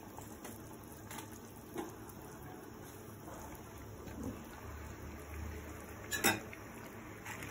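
Pot of pork broth simmering with napa cabbage piled on top: a steady faint bubbling, with a few light ticks and one sharp click about six seconds in.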